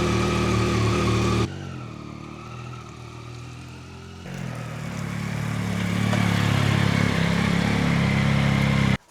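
Yamaha R9's inline three-cylinder engine running steadily. About a second and a half in it drops to a quieter level, and from about four seconds in it builds back up, gradually louder, until it cuts off suddenly near the end.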